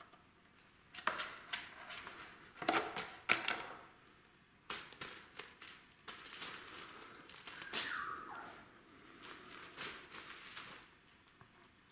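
Irregular knocks and crackles from a paper tube rolling and bumping on a tile floor as a kitten bats at it, followed by cellophane crinkling as the kitten steps onto the bag. The loudest knocks come in the first few seconds, and there is a brief falling squeak about eight seconds in.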